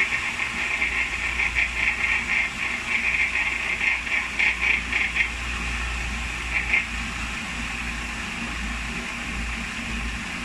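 Food processor running, its blade chopping and puréeing chickpeas, peanut butter, cocoa powder and maple syrup into a thick brownie batter. The whir flutters unevenly over the first few seconds as the blade strikes the thick mixture, then runs more steadily.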